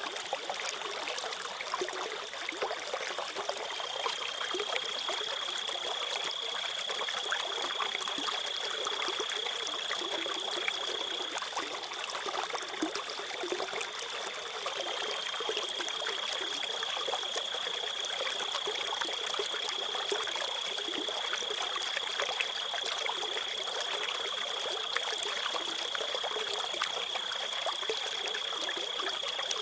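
A trickling stream with crickets trilling over it in one steady, high, unbroken tone.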